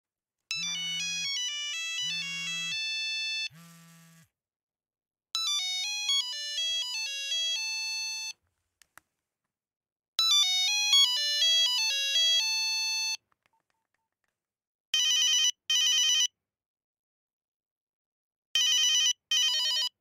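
Nokia 8210 mobile phone ringtones: three short monophonic beeping melodies one after another, each about three seconds long, then two pairs of short, high, pulsed rings near the end.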